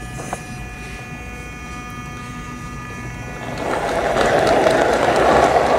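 LGB G-scale model train running on its track, heard from on board: a mechanical whine of several steady tones, then about three and a half seconds in a loud rushing hiss rises in and takes over.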